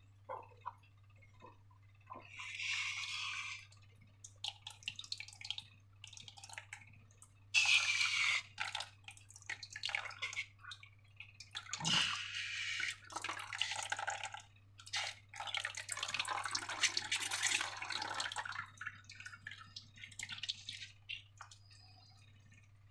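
Slime being handled and mixed: an irregular run of short clicks and longer squishing bursts, loudest about eight seconds in.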